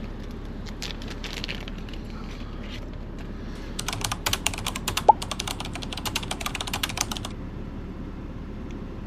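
A run of rapid keystroke clicks, like typing on a keyboard, lasting about three and a half seconds from about four seconds in, with one short rising chirp in the middle; a steady low hum underneath.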